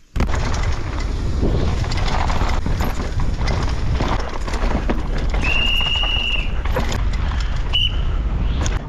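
Downhill mountain bike clattering fast over rough trail, with many quick knocks and rattles and heavy wind rumble on the microphone. A high steady squeal lasts about a second past the middle, with a short one near the end.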